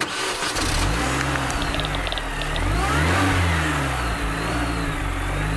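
Car engine revving, its pitch rising and falling several times, with a faint high whine above it.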